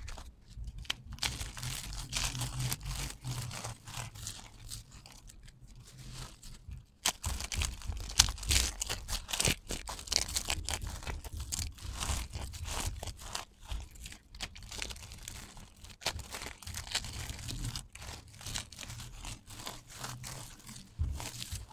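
Handfuls of dry soap stripes (thin soap shavings) crushed and squeezed between bare hands: a dense, crisp crunching and crackling that goes on without a break, with a few sharper cracks about seven to eight seconds in.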